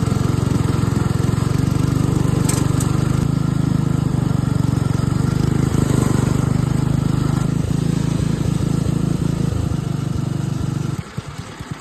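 John Deere 56 riding lawn mower's engine running steadily while cutting grass, then cutting off suddenly near the end.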